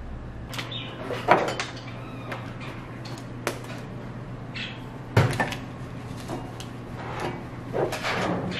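Scattered knocks, clicks and light clatter of objects being handled and set down on a wooden desk, over a steady low hum.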